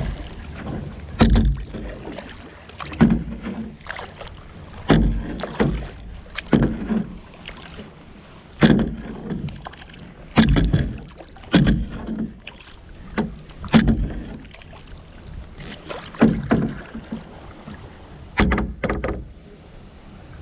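Kayak paddle strokes: the paddle blades dipping and splashing into the river. There is a loud stroke about every one to two seconds, some coming in quick pairs.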